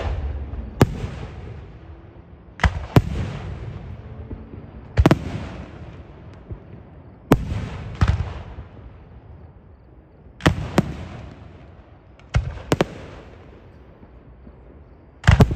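Aerial firework shells bursting: about eleven sharp bangs, several in close pairs, coming every second or two, each trailing off in a fading rumble.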